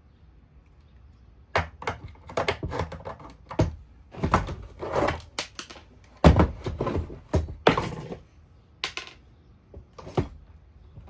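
Irregular plastic knocks, clicks and rattles as parts of a Shark vacuum's plastic housing are handled and fitted together, in a string of bursts from about a second and a half in until near the end.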